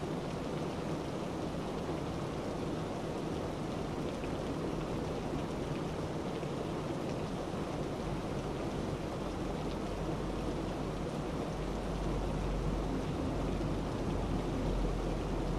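Steady rushing noise with a low rumble underneath that grows louder in the last few seconds.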